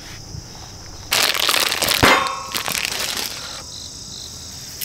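A small dog scrabbling behind a bed in a tent: about a second in, a burst of rustling and scratching against fabric, with a thump about two seconds in and a brief rattle after it.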